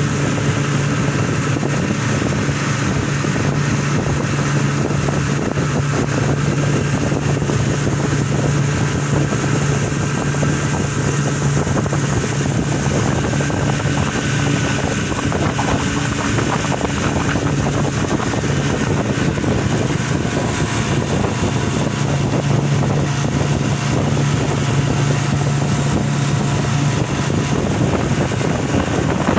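Outboard motor of a small aluminium boat running steadily at cruising speed, a constant drone with wind noise on the microphone.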